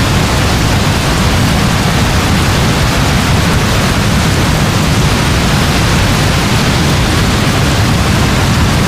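Heavy rain falling steadily: a dense, even hiss with a strong low end and no breaks.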